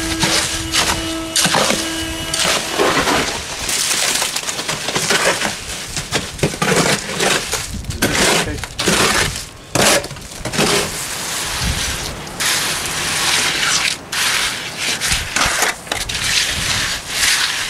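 Wet concrete being worked by hand: a hoe scraping and churning it in a wheelbarrow, then concrete tipped out and shovelled and spread in a step form, heard as repeated gritty scraping strokes. A steady hum runs under the first two seconds.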